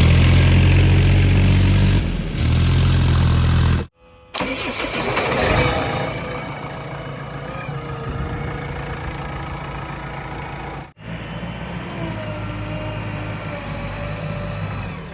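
Heavy diesel engine of a JCB 3DX backhoe loader running, loud and steady at first, then cut off abruptly at about four seconds and again near eleven. Between and after the cuts it runs more quietly, with a faint wavering whine over it.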